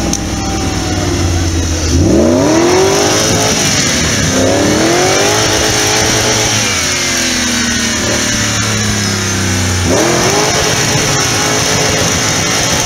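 Off-road buggy's engine revving hard in three sharp bursts, each a rising pitch that sags back, with lower running between them as the buggy drives through snow.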